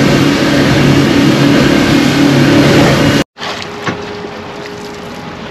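Boat engine running steadily under way, loud, with rushing air and water behind it. It cuts off abruptly about three seconds in, and a much quieter steady hum with a few light clicks follows.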